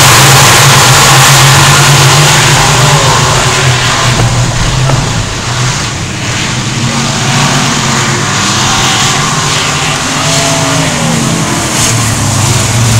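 A pack of dirt-track race cars running laps, their engines a loud, dense din with individual cars revving up and down. The sound is loudest in the first couple of seconds as the field passes close, eases off in the middle, and builds again near the end.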